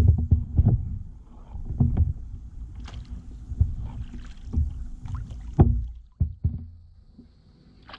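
Kayak being paddled: irregular knocks and bumps of paddle and boat over a low rumble, with the sharpest knock a little past halfway.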